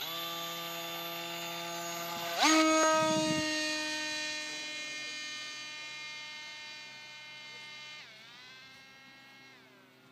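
Electric motor and propeller of a hand-launched foam RC plane whining. It hums steadily at first, then about two and a half seconds in revs sharply up to full power as the plane is thrown, and fades slowly as the plane climbs away. Near eight seconds in the pitch drops as the throttle is eased back, and the sound dies out.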